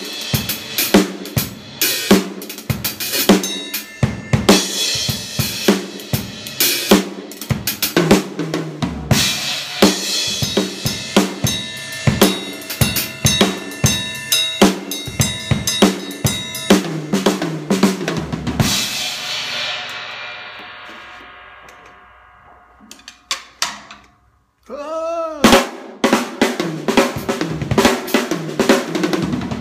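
Drum kit played in a groove of snare, bass drum and cymbal hits; the snare is tuned for a fat sound. About 18 seconds in the playing stops and a last hit rings out and fades for several seconds. After a moment of quiet and a short warbling pitched sound, the groove starts again.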